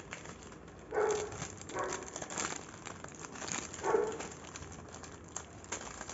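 A dog barking a few short times, about a second in, near two seconds and near four seconds. Under it, plastic packets and bubble wrap crinkle as they are handled.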